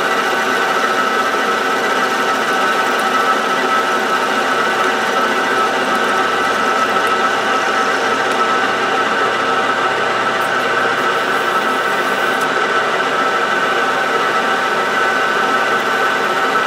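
Small benchtop metal lathe running steadily with a whine of many steady tones, its four-jaw chuck spinning while the tool takes a facing cut across the end of the part to bring it down to length.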